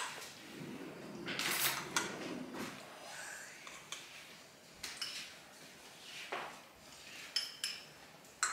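A metal fork clinking and scraping in a small bowl of pasta as it is scooped up: scattered short taps, a few seconds apart.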